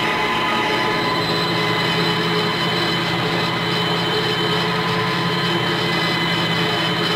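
Antonio Carraro 10400 TTR tractor's diesel engine running steadily under load, heard from inside the cab, while it drives a BCS Rotex mower cutting grass. An even, constant drone with steady high tones over it and no changes in pace.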